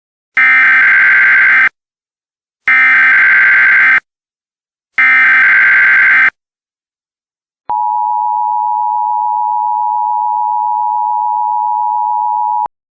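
Emergency Alert System SAME header: three loud bursts of digital data tones, about a second and a half apart. They are followed by the two-tone EAS attention signal, held steady for about five seconds and then cut off with a click. This sequence announces a new alert message.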